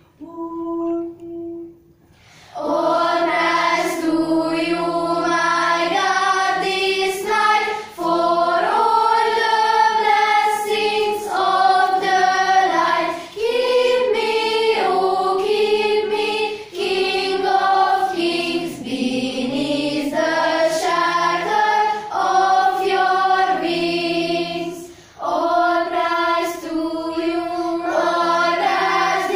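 School youth choir, mostly girls' voices, singing together in harmony, with a few short breaths between phrases. A couple of faint held notes come first, and the full choir comes in about two and a half seconds in.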